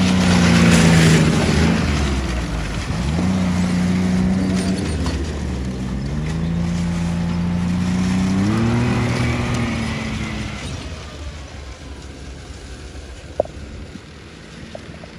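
Arctic Cat snowmobile engine running under throttle. It is loudest as it passes close in the first couple of seconds, its pitch dips and rises a few times with the throttle, and it fades as the machine drives away over the last few seconds. A single sharp click sounds near the end.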